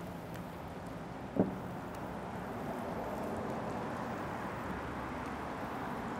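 Gloved hand tossing shredded cabbage and creamy dressing in a glass bowl: a soft, continuous wet rustling and squishing, with one short louder sound about one and a half seconds in.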